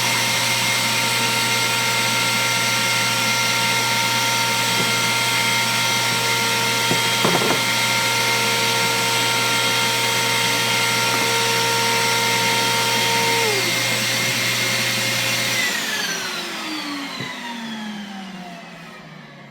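Router in a router table running steadily at full speed, then switched off about sixteen seconds in, its whine falling in pitch and fading as the motor and bit spin down.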